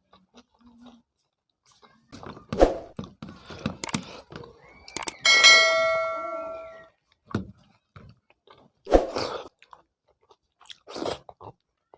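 Eating noises: chewing, and knocks of a hand or utensil against a dish. About five seconds in, a metal dish is struck once and rings for about a second and a half before fading.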